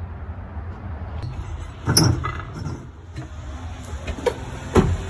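A few sharp knocks and clanks, the loudest about two seconds in and two more near the end, over a steady low rumble, as of tools and parts being handled during a car teardown.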